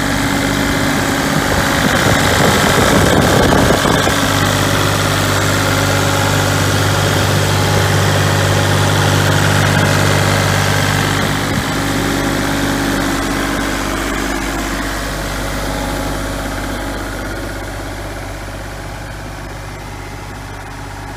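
Kubota KX040-4 mini excavator's four-cylinder diesel engine running steadily, a little louder for a couple of seconds near the start and growing gradually fainter through the second half.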